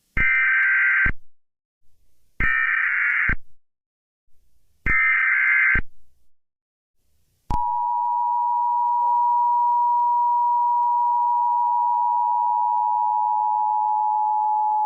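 Emergency Alert System activation: three short, buzzy SAME header data bursts about two seconds apart, then, after a short pause, the steady, piercing two-tone EAS attention signal.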